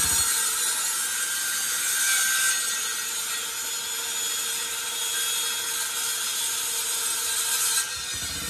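Power tool running steadily on wood, a constant hiss with a steady motor tone, easing off about eight seconds in.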